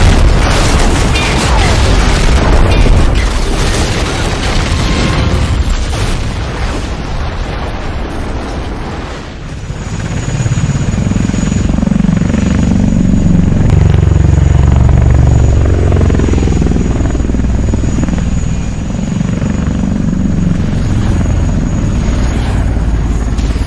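Loud rumbling noise for the first several seconds, then a low, steady aircraft engine drone with a thin high whine, like a helicopter or military drone in flight.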